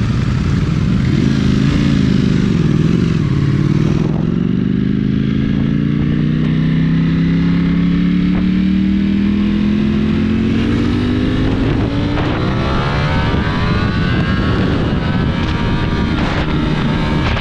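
Superbike engine pulling under acceleration. Its pitch dips a couple of seconds in, then climbs steadily for most of the rest, with a faster rise near the end.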